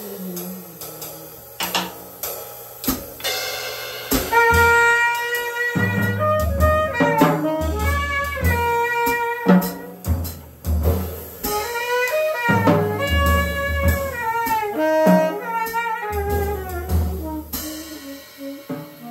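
Saxophone and drum kit playing jazz as a live duo. The saxophone plays a run of short and held notes, many of them bending up and down in pitch, over cymbal strikes and, from about four seconds in, heavy low drum hits.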